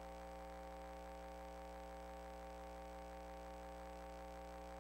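Faint, steady hum of several unchanging tones from a sewer inspection camera rig as its crawler advances through the pipe.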